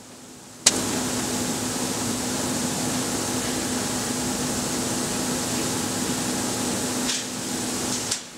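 A sharp click, then the steady mechanical noise of a web-fed newspaper printing press running, with an even hum beneath the clatter of the paper web.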